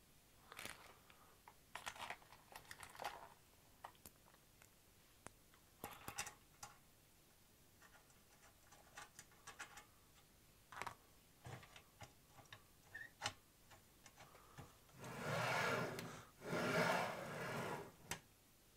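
Small metal parts and tools being handled on a 3018 CNC router's aluminium frame: scattered light clicks and taps, then near the end three louder, longer sliding sounds as the cross-slide carriage is pushed back and forth along its guide rods.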